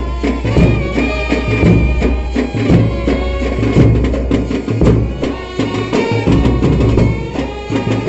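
Tamil sanda melam festival band music: heavy drums beating steadily under a sustained melody.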